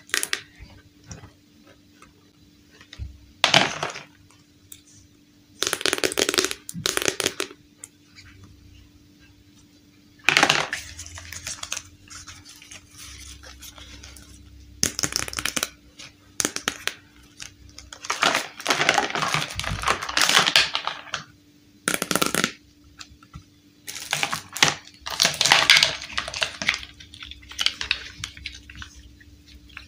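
Hard plastic toy building pieces clicking and clattering as they are handled and set down, in irregular bursts with quiet gaps, mixed with longer rustling and crinkling from the packaging and cards.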